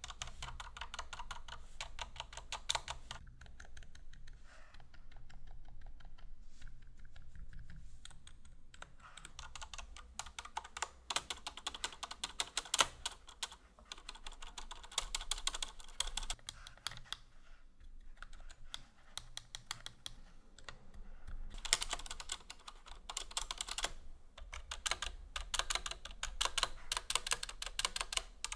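Typing on a Hansung TFG ART keyboard fitted with lubed Zealios Zilent 67g silent tactile switches, GMK Metropolis keycaps and Sorbothane dampening. The keystrokes come fast in bursts of several seconds, with pauses between them, one of them about four seconds long in the second half.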